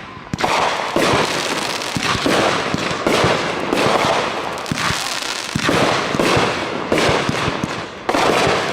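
Fireworks going off in a dense, near-continuous volley: sharp bangs with crackling in between, a big burst about every second.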